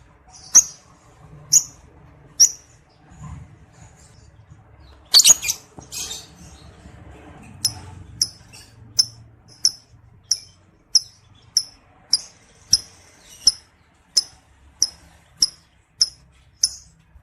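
Lovebird calling with short, sharp, high chirps: a few spaced ones, a louder flurry about five seconds in, then a steady run of single chirps at roughly one and a half a second.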